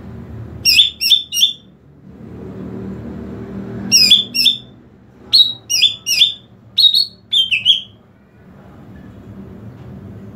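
Greater green leafbird (cucak ijo) singing in four short bursts of three or four sharp, high, quick notes each, with pauses between them, over a low background murmur. This is the calling song used to lure other cucak ijo and set them singing.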